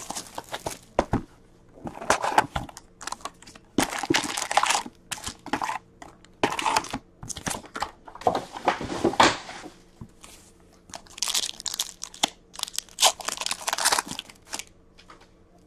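Cellophane shrink wrap crinkling in irregular bursts as it is stripped from a box of hockey card packs and the packs are handled, then a foil card pack torn open near the end.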